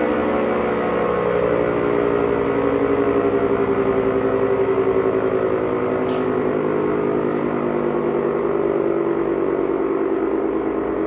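Secomak GP8 air raid siren running at full power, a loud steady wail of several tones beating against each other with a fast flutter in the loudness. A few faint clicks sound about halfway through.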